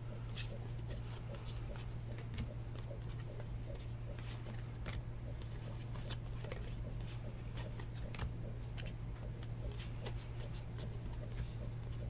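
A stack of football trading cards being thumbed through by hand, card stock sliding and clicking in many light, irregular ticks, over a steady low hum.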